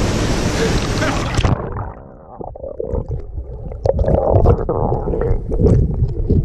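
Rushing river water, cut off about a second and a half in as the camera is dunked underwater, giving way to muffled underwater rumbling with bubbles and scattered knocks.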